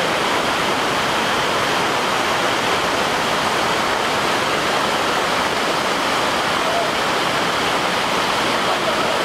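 Waterfall pouring: a steady, even rush of falling water with no let-up.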